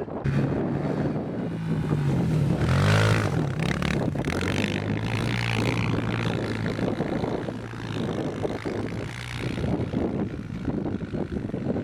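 Small off-road vehicle engine running, with a rev that rises and falls about three seconds in.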